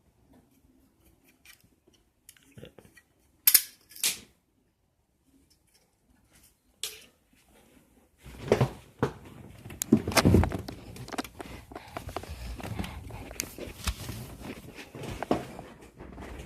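Plastic Lego bricks being handled: a few separate sharp clicks, two loud ones close together, then from about eight seconds in a continuous clatter of pieces.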